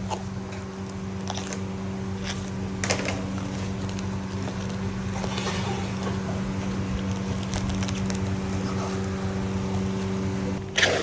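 A steady mechanical hum, with a few light clicks and clatter over it.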